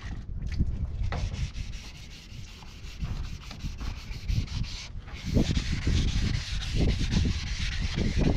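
Rough rubbing and scraping of sanding, in irregular repeated strokes, with a steadier hiss from about five seconds in.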